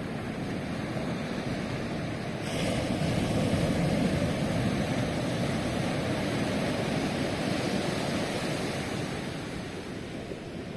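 Ocean surf breaking on a beach: a wave crashes about two and a half seconds in with a burst of hiss, the wash stays loud for several seconds, then eases off near the end.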